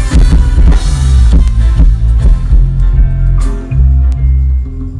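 Loud music with a drum kit, kick and snare hits over a heavy, deep bass line. The drum strokes are dense in the first couple of seconds and thin out later while the bass notes hold.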